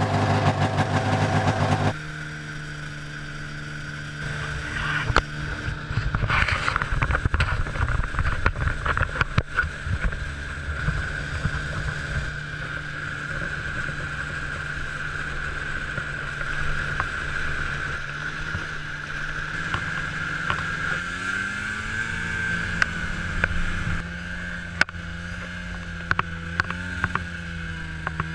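Ski-Doo snowmobile engine running steadily while the sled rides over snow, with rough, noisy gusts on the microphone for a few seconds early on and the engine pitch rising about two-thirds of the way through as it speeds up. It opens with a louder pitched sound that cuts off sharply about two seconds in.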